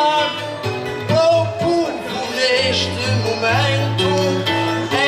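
Instrumental interlude of Portuguese guitar and classical guitar: a plucked melody of changing notes over steady low bass notes, the accompaniment between sung verses of an Azorean desgarrada (improvised sung duel).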